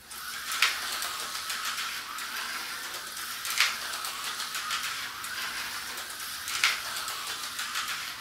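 Tyco HO slot car running laps on a plastic track, its small electric motor and guide running with a steady whir, and a sharp click about every three seconds as it passes the lap counter.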